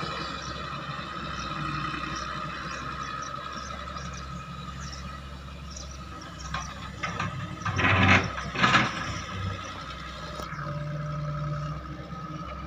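Hitachi 160 hydraulic excavator running under work, a steady engine drone with a high steady whine over it. About eight seconds in, two loud, harsh bursts of noise break through, each lasting under a second.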